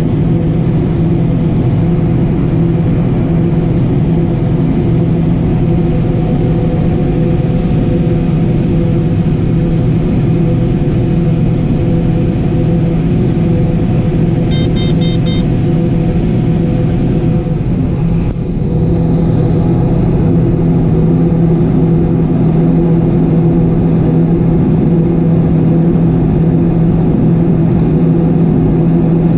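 A John Deere 9570 combine's engine and threshing machinery run with a steady drone, heard from inside the cab while harvesting corn. A short run of rapid electronic beeps comes about halfway through, and the hiss in the sound drops away about two-thirds of the way in.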